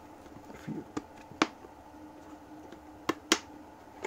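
Handling noise from a plastic helmet shell: four short sharp knocks and clicks as the helmet is gripped and turned, the second and last the loudest.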